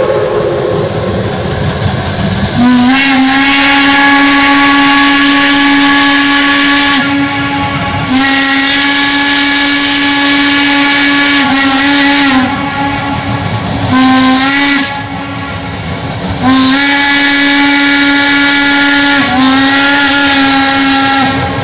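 Steam whistle of Shay geared steam locomotives blowing a run of blasts, mostly long ones of about four seconds with a couple of short ones between, over a steady hiss of steam.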